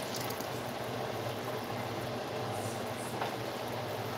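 Pot of chicken adobo simmering in soy-sauce broth, a steady bubbling, with a thin stream of vinegar poured in at the start.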